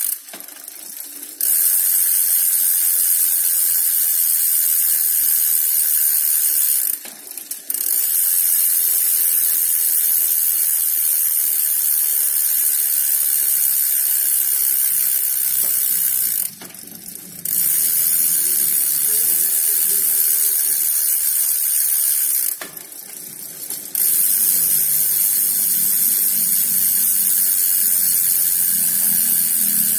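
Shimano 7-speed thread-on freewheel ratcheting fast as the rear wheel spins, a dense high buzz of pawl clicks made louder by a refitted pawl spring wire. It breaks off briefly four times.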